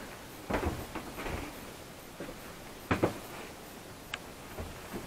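A few scattered knocks and light thuds, about four in all, the sharpest about three seconds in.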